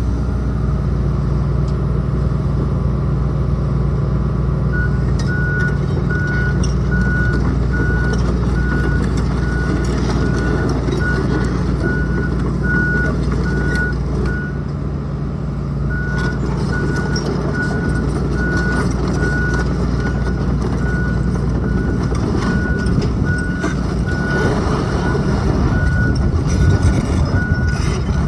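A John Deere 225D LC excavator's Isuzu four-cylinder diesel running steadily, with its travel alarm beeping about twice a second from about five seconds in, pausing briefly midway, as the machine tracks. Metal clatter picks up in the last few seconds.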